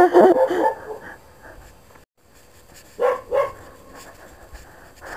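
Dog barking at a stranger, with two short barks about three seconds in.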